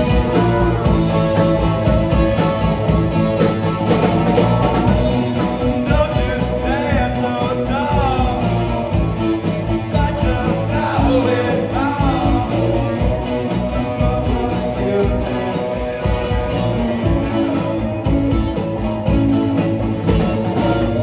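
Live psychedelic rock band playing: electric guitars, keyboard and drum kit together, with a lead line that bends and wavers in pitch through the middle.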